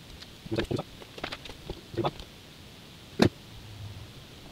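Cables and plastic connectors handled and fed into a controller's metal case: a cluster of light clicks and knocks in the first two seconds, then one sharp click a little after three seconds.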